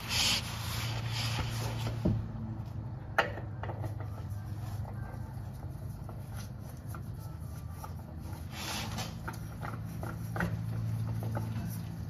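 Light clicks, taps and scrapes as a spin-on oil filter is offered up and threaded onto its mount by hand, with one sharper click about three seconds in and a few more near the end, over a steady low hum.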